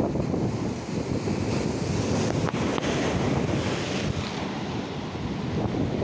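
Sea surf breaking and washing over a rocky shoreline, with wind buffeting the microphone.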